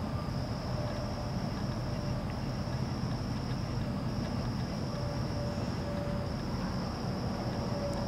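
Steady high-pitched insect trill, breaking off briefly twice around the middle, over a low background hum.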